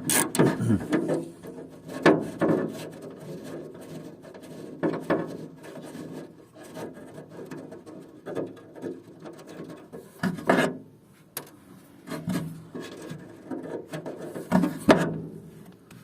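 Hand tools working on the handle's retaining screws in a car door: irregular scraping and rubbing with scattered sharp knocks, the loudest about two seconds in, near the middle and near the end.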